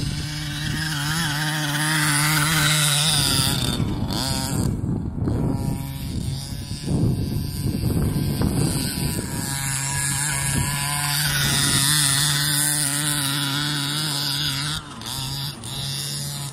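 Small 26cc two-stroke petrol engine of a 1:5 scale Baja RC car running and revving up and down as it is driven, holding a steady note between the revs.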